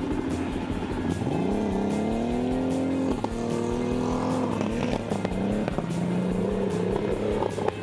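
Old sedan paddock basher's engine revving hard as the car accelerates away across a grass paddock, its pitch rising, dropping suddenly about three seconds in at a gear change, then holding high. A steady low engine hum, from the dirt bikes idling nearby, runs underneath.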